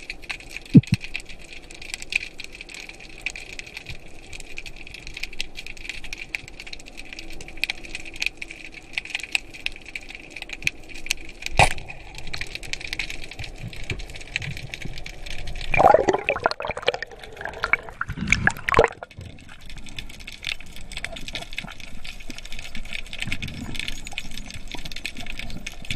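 Underwater sound picked up by a camera in the sea: a steady hiss and crackle with a few sharp clicks, and a burst of gurgling, bubbling water lasting about three seconds, two-thirds of the way through.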